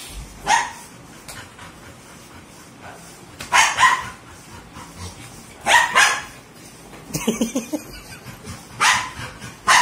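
Dogs giving short barks every couple of seconds, several of them doubled, while play-fighting with a person.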